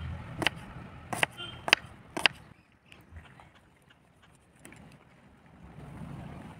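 Kitchen knife chopping a red onion on a wooden cutting board: four sharp knocks of the blade on the board about half a second apart in the first two and a half seconds. Then softer, fainter cuts as the knife goes through a tomato.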